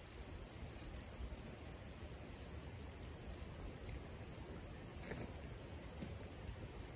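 Creek water running steadily: a faint, even rush of flowing stream water, with a few soft ticks about five seconds in.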